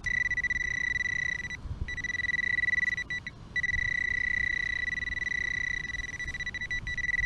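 Metal detector's steady high-pitched target tone held over a buried metal object, breaking off briefly twice, over a low rumble.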